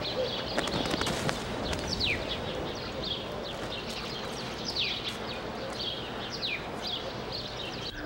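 Birds calling: short, high calls that drop in pitch, repeated every second or so, over a steady background noise.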